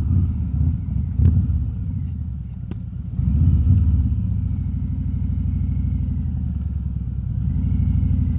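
Harley-Davidson Road King Special's V-twin engine running at riding speed, heard through a mic inside the rider's helmet. The engine eases off about two seconds in and picks up again a little after three seconds. Two sharp clicks come in the first three seconds.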